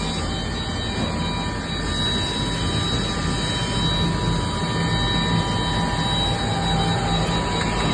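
Törk Naviga 360 edge banding machine running: a steady mechanical noise with several constant high whines over a low hum.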